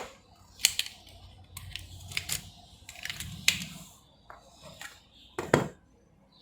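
Sharp clicks and knocks of plastic controller parts being handled and set together as a Sony PS4 controller is reassembled, about seven in all, the loudest about five and a half seconds in.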